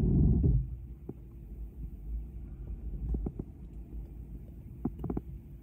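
Low, steady rumble of a car idling, heard from inside the cabin, with a louder low thump at the start and a few faint clicks.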